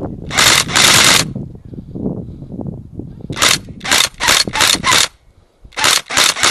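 Airsoft guns firing short bursts, about ten rattling bursts of a fraction of a second each, in three clusters with pauses between them.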